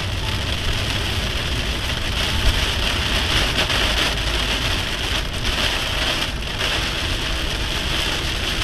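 Rain hitting a moving car's windshield and roof over steady tyre and road noise at highway speed, heard from inside the cabin. One brief tap about two and a half seconds in.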